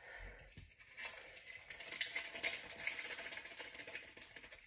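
Soft, fine crackling rustle of a small paper sachet of whipped-cream stabilizer being shaken out into a tall stainless steel pot.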